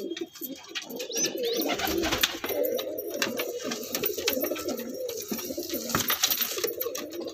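Domestic pigeons cooing continuously, the coos overlapping one another, with scattered clicks and rustles.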